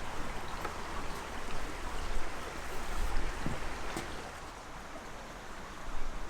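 Steady rush of running water, with a few scattered light clicks and knocks.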